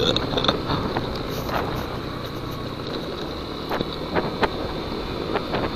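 Yamaha NMAX scooter riding over a rough, potholed road: steady engine and road noise under wind on the microphone, with a few light knocks and rattles from the bumps.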